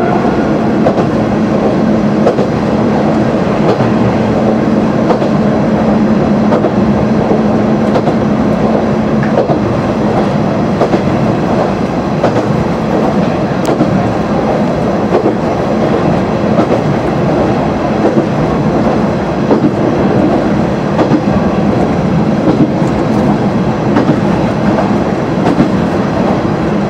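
Kanto Railway KiHa 350 diesel railcar running along the line, heard from inside its rear cab: steady running noise with the wheels clicking over rail joints. A steady engine hum weakens about eight seconds in, leaving mostly the wheel and running noise.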